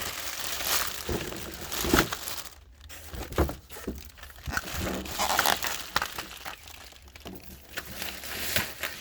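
Packaging crinkling and rustling as it is handled, in irregular bursts with a few sharp crackles and knocks.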